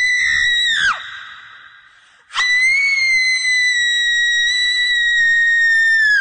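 High-pitched scream held on one note, sliding down in pitch and breaking off about a second in, its echo dying away. A second long scream starts a little over two seconds in, holds steady, and drops away at the end.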